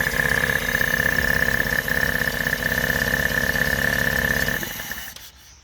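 1975 Datsun 620's L20B four-cylinder engine, on a new Weber 32/36 carburettor with points ignition, idling steadily with a high whine over it, then switched off and running down about five seconds in.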